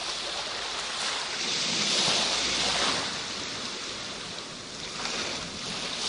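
Sea surf breaking and washing up a sandy beach, a steady rushing hiss that swells and eases with the waves, loudest about two seconds in.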